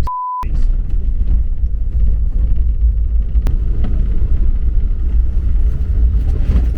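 A short steady beep near the start, then the steady low rumble of a 4x4 driving along a rough lane, with a single sharp click partway through.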